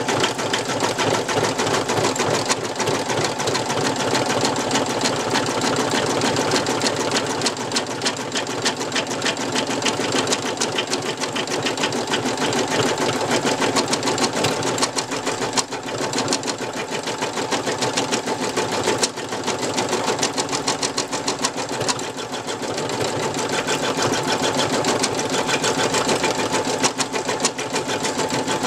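Brother NV2600 computerized embroidery machine stitching at speed: a fast, even needle clatter that briefly dips a few times.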